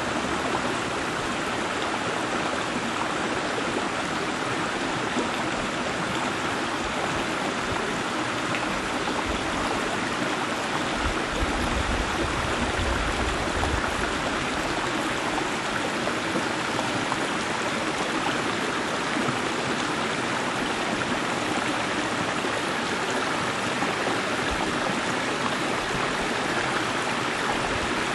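Shallow creek water flowing over bedrock ledges and around rocks: a steady rushing and trickling.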